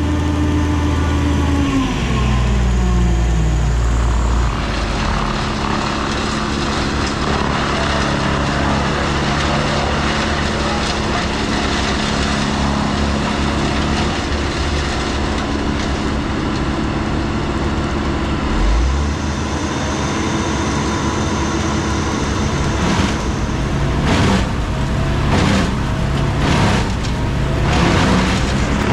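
An engine running steadily, its speed dropping about two seconds in; several short noisy bursts come near the end.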